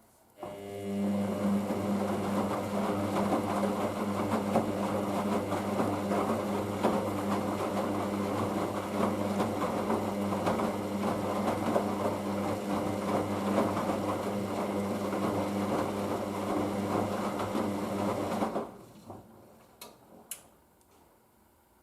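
Hoover DYN9144D3X front-loading washing machine's motor turning the drum with water sloshing during the rinse, a steady hum that starts about half a second in and stops suddenly near the end as the drum pauses; a few faint clicks follow.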